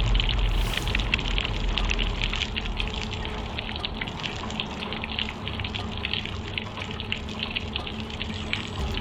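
Steady downpour of rain: a dense pattering of drops and running water. A low rumble dies away over the first two or three seconds.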